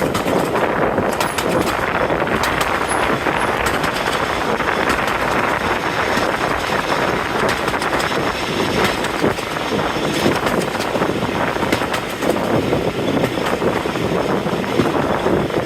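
Passenger train hauled by Class 45 diesel locomotive 45108 running along the line: a steady rumble of wheels, rails and engine, with frequent short clicks over the top.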